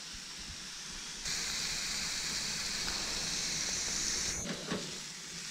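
Rainbow runner fillets sizzling as they fry in oil in a pan, a steady hiss. The sizzle jumps louder a little over a second in and drops back suddenly near the end.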